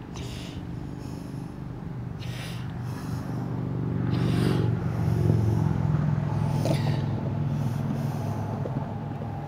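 A motor vehicle driving past, its engine hum growing louder to a peak about halfway through and then slowly fading.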